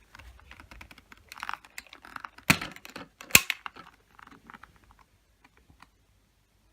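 Objects being handled: a run of light clicks and rustling, with two sharp knocks about two and a half and three and a half seconds in.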